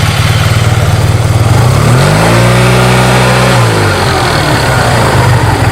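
Yamaha TMAX 530 maxi-scooter's parallel-twin engine idling, then blipped once about two seconds in: the revs rise, hold briefly and drop back to a pulsing idle. The bike is recorded for an abnormal noise that its owner hears in it.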